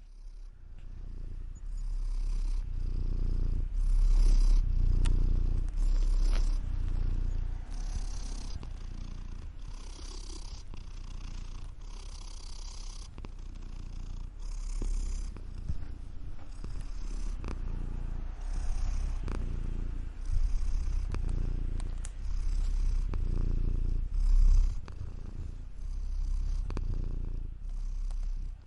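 Domestic cat purring steadily close up, the low rumble swelling and easing in slow waves about every two seconds.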